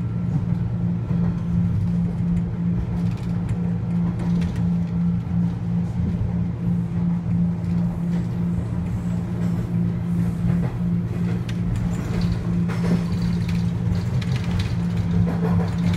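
Subway train running between stations, heard from inside the car: a steady low hum over continuous wheel-on-rail rumble.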